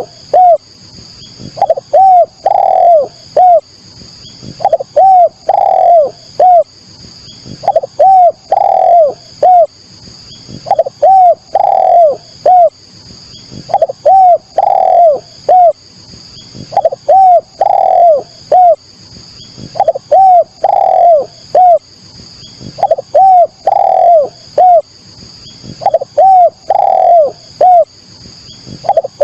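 Spotted dove (tekukur, derkuku) cooing: the same phrase of about four notes, repeated evenly about every three seconds, as in a dove lure recording. A steady high-pitched buzz runs behind it.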